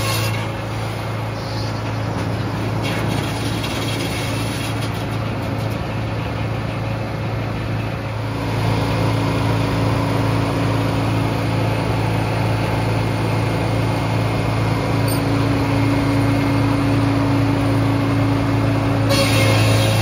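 Frick circular sawmill running with a steady low drone. About eight seconds in it grows louder and a steady higher hum joins in.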